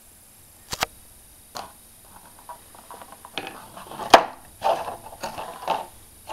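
Thin clear plastic packaging tray being flexed and pried apart by hand to free a vinyl figure: a couple of sharp clicks about a second in, then a run of crackling and crinkling with one loud snap of the plastic a little past four seconds.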